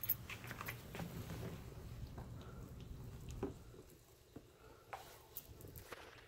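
A Lycan Shepherd puppy gnawing a raw whole tilapia: faint, scattered crunches and clicks of teeth on the fish.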